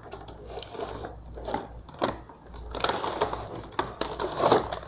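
Toy packaging being torn and crinkled open by hand, in irregular scratchy rustles that grow louder and busier in the second half.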